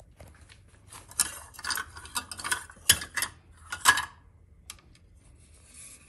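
Metal kitchenware clinking and knocking against a stainless steel pot: a handful of irregular sharp clanks, the loudest about three and four seconds in.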